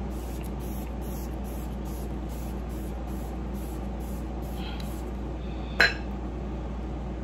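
Setting-mist pump spray bottle spritzed onto the face in a quick run of about a dozen short hisses, a little over two a second, stopping after about four and a half seconds. A sharp click near six seconds.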